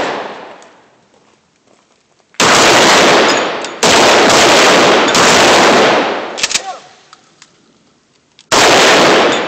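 Gunshots: one about two and a half seconds in, a quick string of several more soon after, and another near the end, each leaving a long echoing tail.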